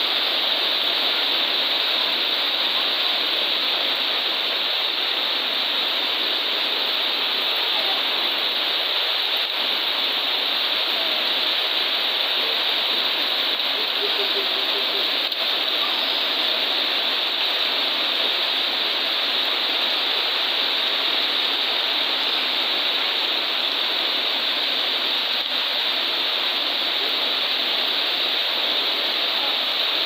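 Heavy tropical downpour: a steady, unbroken hiss of rain pouring onto trees, corrugated metal roofing and a flooded yard.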